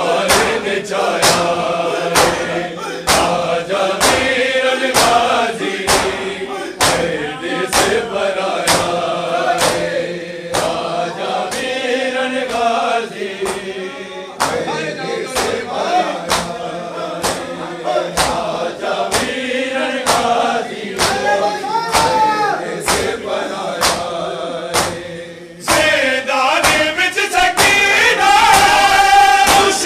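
A crowd of men chanting a nauha (lament) together, over a steady beat of chest-beating (matam) slaps. The chanting drops away briefly about 25 seconds in, then returns louder.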